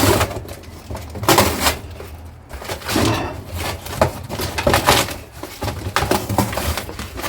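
Irregular clattering, knocking and scraping of discarded household items being handled and opened up to see what is inside.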